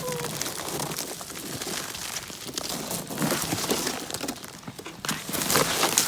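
Ice-crusted snow crunching and crackling in a dense, irregular run of snaps, growing louder about five seconds in; the freezing rain has turned the snow's surface to ice.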